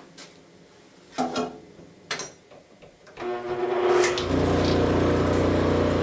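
A couple of light knocks, then about three seconds in a 1/3-horsepower, 1725 RPM furnace motor is switched on and spins up a 12-inch MDF sanding disc, settling within about a second into a steady hum. It runs pretty smooth: the flat disc is running true, without heavy shaking.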